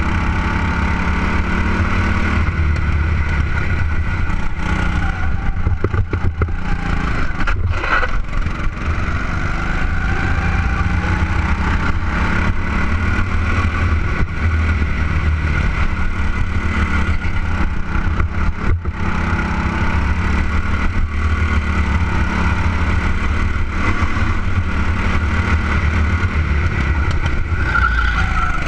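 Go-kart engine running hard on a lap, heard close up from the kart itself. Its note rises and falls gently with speed through the corners over a steady low rumble.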